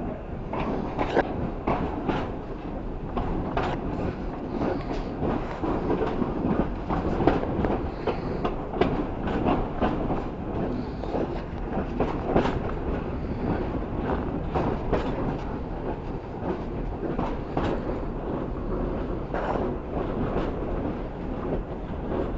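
A heritage passenger train's carriage rolling along the track, heard from on board: a steady rumble with frequent irregular clicks and knocks from the wheels on the rails.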